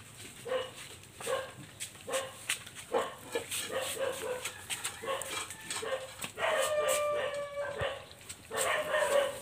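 Puppies eating together from a shared bowl: short yips and squeals come about once a second over wet chewing and lapping clicks. Two longer, higher whines come near the end.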